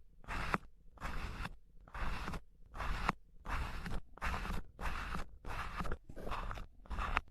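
Kinetic sand being cut or scraped in quick repeated strokes, a short gritty swish a little under twice a second.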